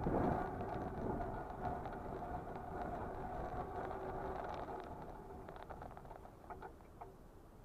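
Electric mobility scooter's drive motor whining steadily over the crunch and crackle of tyres on gravel and slush. The whine and tyre noise fade away over the last few seconds as the scooter suddenly loses power and slows down.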